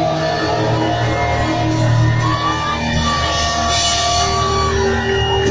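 Live rock band playing, with electric guitars and a keyboard sounding long held notes.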